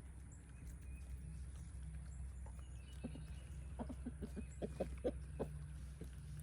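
Chickens clucking: a quick run of short clucks in the second half, over a steady low hum.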